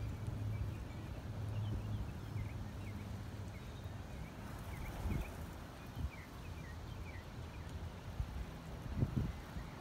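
Outdoor ambience: a steady low rumble with faint, short bird chirps scattered throughout, and a few dull low thumps, the clearest about nine seconds in.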